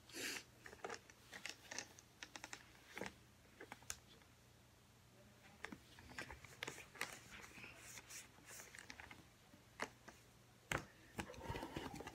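Faint rustling of a white cloth being handled and rubbed over a plastic baby doll, with scattered light clicks and taps and a louder knock near the end.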